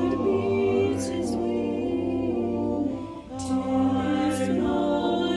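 Small vocal ensemble singing a cappella in sustained, layered chords. The voices drop away briefly about three seconds in, then re-enter on a new chord.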